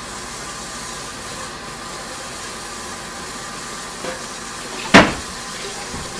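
Steady hissing noise, with one sudden loud knock about five seconds in.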